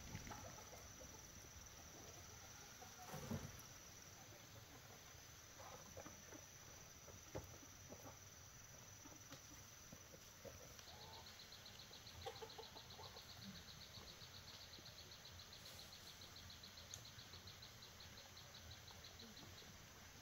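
Faint insects in quiet countryside: a steady high whine, then about halfway through a rapid, evenly pulsing high trill takes over. A few soft knocks, the loudest about three seconds in.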